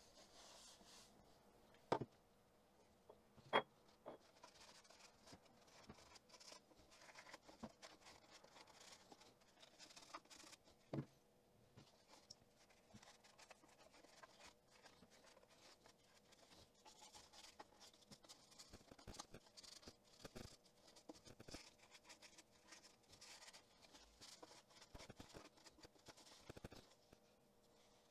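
Faint rubbing of a cloth working oil into a Brooks B17 Narrow leather bicycle saddle, with a few soft clicks from handling the saddle in the first dozen seconds.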